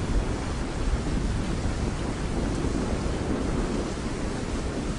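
Steady rushing noise of floodwater, with a deep rumble of wind buffeting the microphone.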